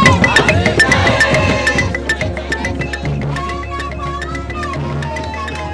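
Music with drums and knocking percussion under a melody line, gradually fading out.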